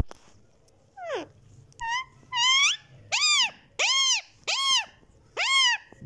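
Indian ringneck parakeet calling: about seven loud, pitched calls, the first a falling glide, the rest short rising or arched calls repeated about every half second. A sharp click comes just before them.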